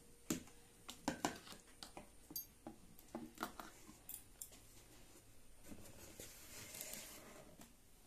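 Metal spoons tapping, clinking and scraping against an iron sizzler plate and ceramic plates as rice and manchurian are scooped and served: a scattered series of light clicks and taps, with a longer soft scrape near the end.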